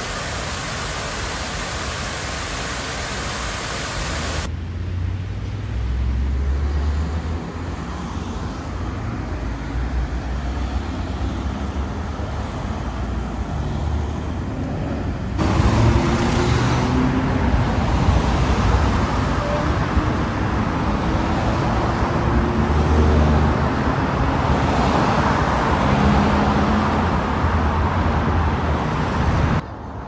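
City street traffic: cars and other vehicles passing, a steady wash of engine and tyre noise. It shifts abruptly about four and fifteen seconds in and is louder in the second half.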